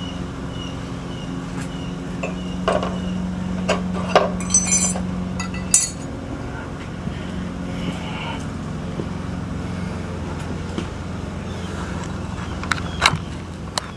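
Metal clinks and knocks as rusty-then-cleaned railroad spikes are handled and set down, a cluster of bright clinks about four to six seconds in and two more near the end, over a steady low mechanical hum.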